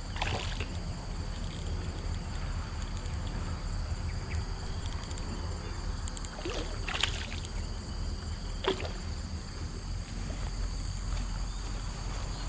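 A small fish splashing and sloshing at the water's surface a few times as it is played on an ultralight rod, with brief splashes near the start, around seven seconds in and around nine seconds in.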